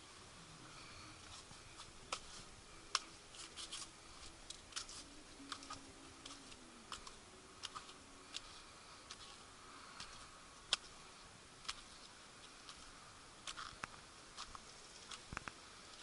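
Irregular sharp clicks and light scrapes from someone clambering over rough coral rock with a handheld camera: footsteps and camera-handling noise, over a faint steady hiss.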